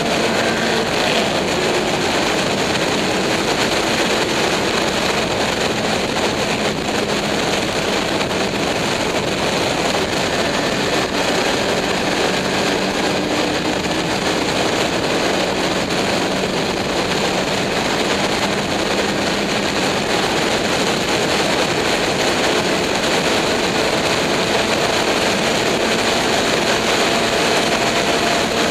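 Onboard sound of an open-top race car at speed on track: the engine running hard under a heavy, steady rush of wind over the microphone, its note drifting slowly up and down.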